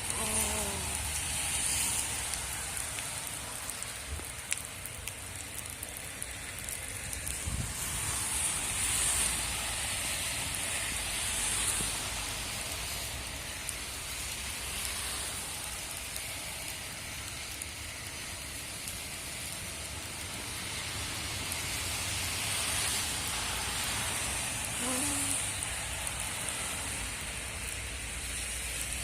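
Heavy rain pouring down, driven by strong wind, with a steady low rumble. The downpour swells twice in gusts, about a third of the way in and again near the end.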